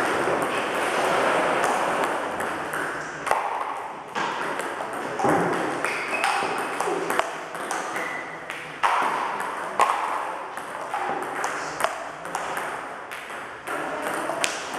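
Table tennis multiball drill: light, sharp clicks of plastic balls struck by rubber bats and bouncing on the table, coming irregularly about once or twice a second.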